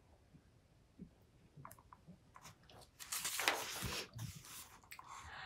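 A page of a hardcover picture book being turned: a few faint clicks, then a paper rustle and swish about three seconds in, and a softer brush of paper near the end.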